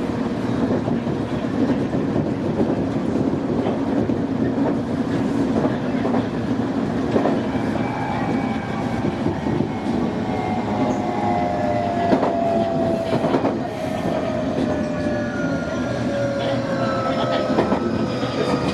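Nankai Main Line electric train running, heard from behind the cab, with sharp clicks as the wheels pass rail joints and points. From about halfway a motor whine falls steadily in pitch as the train brakes for a station stop.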